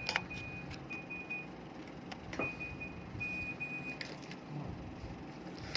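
Scattered small clicks and taps of a plastic computer mouse being handled and worked open, over a faint high steady tone that comes and goes twice.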